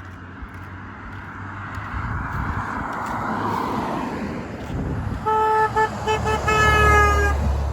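A passing car's horn honking: several short toots and then one longer note, the pitch sinking slightly, over the rising sound of the car approaching.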